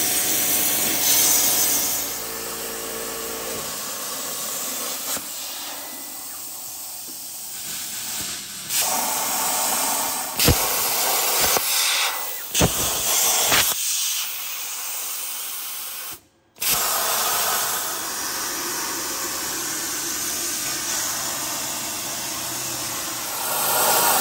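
Plasma cutter arc hissing steadily as a CNC plasma table cuts 16-gauge mild steel sheet, with several sharp starts and short breaks in the middle as the arc stops and restarts.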